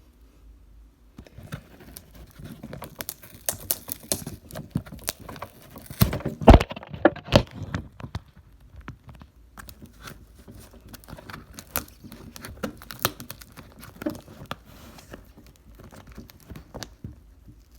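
A package being forced open by hand: rustling and crinkling packaging with many irregular clicks and scrapes, and a cluster of louder knocks about six to seven seconds in.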